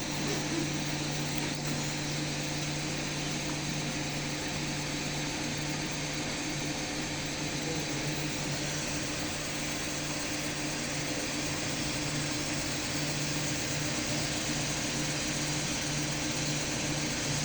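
An engine running steadily at constant speed, a continuous even hum.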